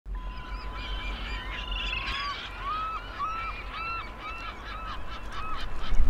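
Geese honking: a run of about eight short, repeated calls starting about a second and a half in, over a low steady rumble.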